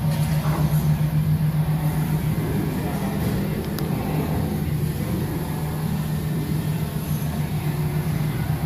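Electric gearmotor driving a heavy-duty square-top turntable, running with a steady low hum as the top rotates.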